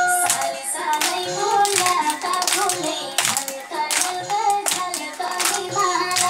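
A children's song sung to a melody, with hand claps landing on the beat about once or twice a second.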